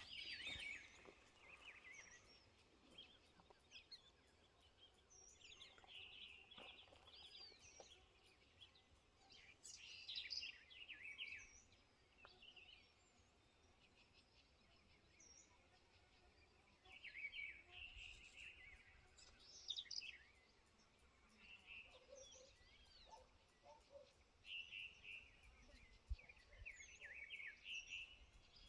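Faint songbirds chirping and trilling in short clusters every few seconds, with quieter gaps between, over a low steady hiss of open countryside.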